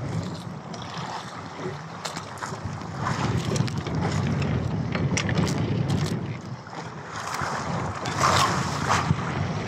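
Wind buffeting the microphone and sea water washing around a small outrigger fishing boat, with scattered light knocks and clicks as a fishing line is handled.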